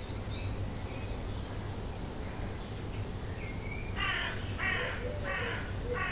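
Dawn chorus of wild birds: faint high chirps and a short fast trill in the first two seconds, then from about four seconds a harsh cawing call repeated four times, about two-thirds of a second apart, over a low steady rumble.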